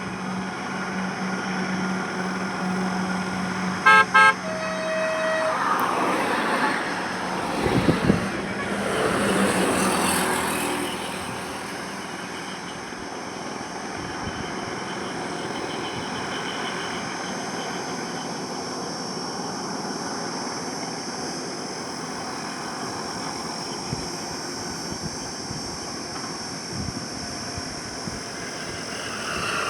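Highway traffic: a steady rumble of engines and tyres, with a vehicle horn beeping twice about four seconds in. Several vehicles pass close between about six and eleven seconds in, then the flow settles back to a steady drone.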